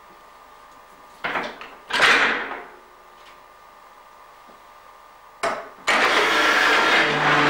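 Two wooden knocks on the barrel machine, the second louder, then a short clack, then near the end the cooperage's barrel machine starts with a sudden, loud, steady running noise.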